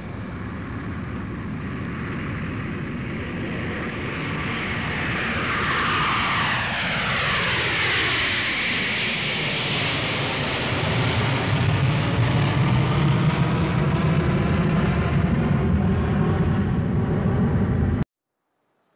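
Blade 350 QX quadcopter's four brushless motors and propellers whirring as it lifts off and climbs, heard from its onboard camera, the pitch gliding and shifting as the motors change speed. The sound grows louder and cuts off suddenly near the end.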